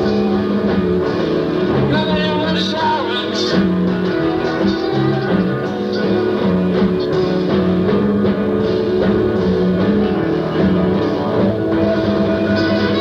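Live rock band playing: twelve-string and electric guitars, bass and drums. The recording is rough and muffled, dubbed from a worn C90 cassette.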